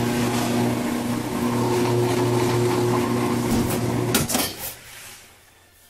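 Top-loading washing machine switched on at the cycle knob, running with a steady electrical hum and hiss, showing that the rebuilt timer still starts it. About four seconds in it is switched off with a click and the sound dies away.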